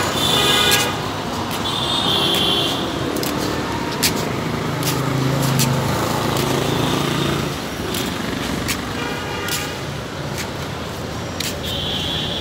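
Busy street ambience: traffic running past with several short vehicle horn toots, and voices in the background.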